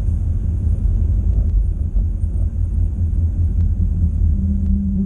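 Steady low rumble of a car's engine and tyres heard from inside the cabin while driving, with a steady hum joining about four seconds in.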